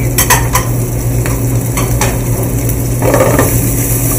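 Sliced mild Italian sausage sizzling in hot olive oil with garlic in a sauté pan, with a few sharp metal clicks in the first two seconds and a brief rush as the pan is tossed about three seconds in. A steady low hum runs underneath.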